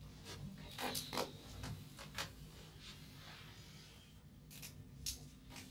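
Faint rustling with a few short scrapes and clicks from students in a quiet classroom.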